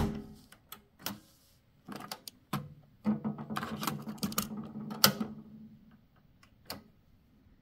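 Mechanical clicks of an Akai CS-732D cassette deck's piano-key transport and cassette door: a sharp key click cuts the tape playback off, followed by scattered clicks, a couple of seconds of low hum and rattling, and a loud clack about five seconds in as the door is worked and the cassette taken out.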